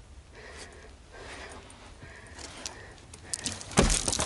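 Faint shuffling movement in sand, then near the end a sudden heavy thump as a person's head smashes into the wall of a low, half-buried doorway.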